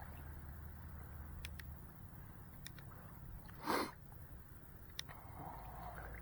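Faint low background rumble with one short, sharp sniff close to the microphone about three and a half seconds in.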